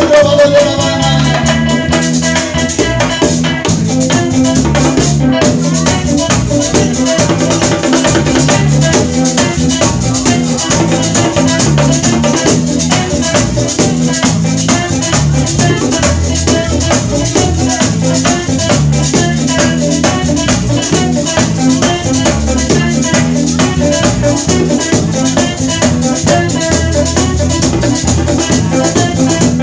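Live bachata band playing: electric lead guitar picking over bass guitar, driven by the steady metallic scraping of a güira and the tapping of bongos.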